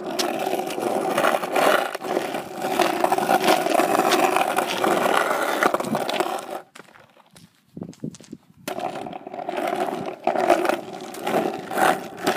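Skateboard wheels rolling over rough asphalt: a continuous grinding rumble that breaks off for about two seconds partway through, with a few clicks in the gap, then resumes.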